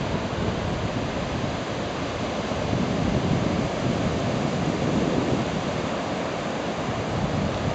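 Ocean surf breaking and washing up the sand of a beach: a steady rush of waves with no let-up.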